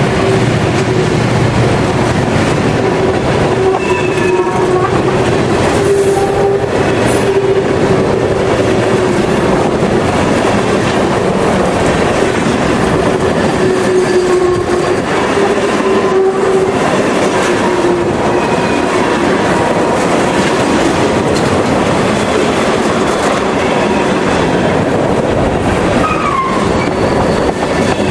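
Loaded freight cars of a long train rolling past at close range, a steady rumble of steel wheels on rail with clickety-clack over the joints. A wavering steady whine rides on top through much of it, typical of wheel flanges squealing on the curve.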